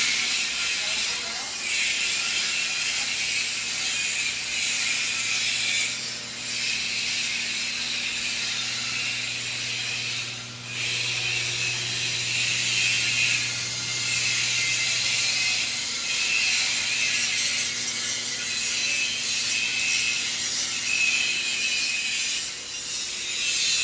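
Electric arc welding on a pipe joint: a steady crackling sizzle from the arc, broken by a few short gaps, over a steady low hum.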